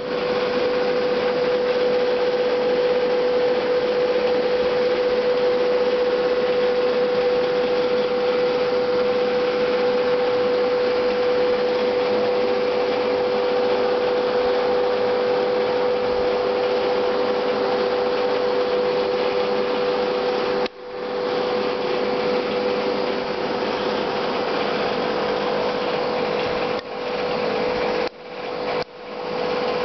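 Aquarium air pump and filter running: a steady electric hum over a hiss of air and bubbling. The sound briefly drops out a few times in the last ten seconds.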